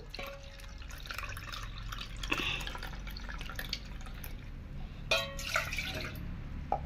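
Milk pouring in a steady stream from a blender jar into a plastic measuring cup, filling it to half a cup. A short knock about five seconds in.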